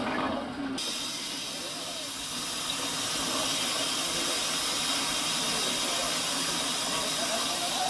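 Steam engine of an old steam tractor giving off a steady hiss of escaping steam, starting suddenly just under a second in.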